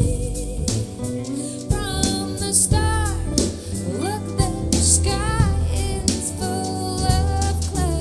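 Soul jazz music: a steady bass line and beat under a melody line that slides and bends in pitch, played back through in-ear monitors for a sound demo.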